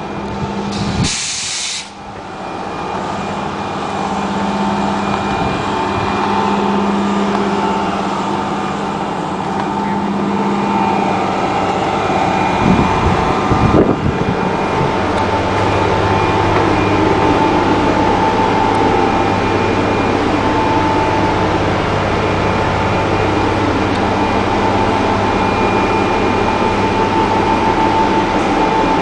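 1989 Gillig transit bus's Detroit Diesel 6V92 two-stroke V6 diesel idling steadily, with a steady whine over it. A short burst of air hiss comes about a second in, and a few knocks about 13 seconds in.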